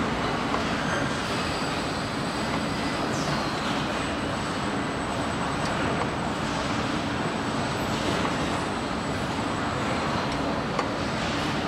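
Steady machinery noise of a car-body assembly line: an even, dense rushing din with a faint constant high whine.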